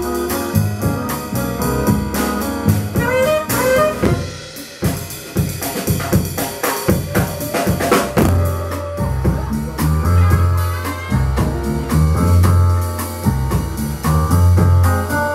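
Live band playing jazzy music, a saxophone lead over a drum kit. About four seconds in the melody drops out for a few seconds of drum hits, then the band comes back in with a heavy, pulsing bass line.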